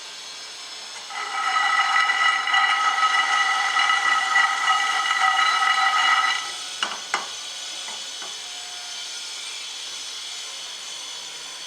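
A steady, loud whistle of steam lasting about five seconds over a constant hiss, then two sharp clicks, with the hiss carrying on.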